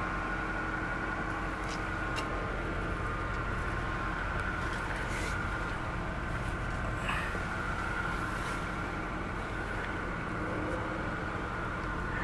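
Steady vehicle engine idle hum with a thin, steady high tone over it, and a few light clicks scattered through.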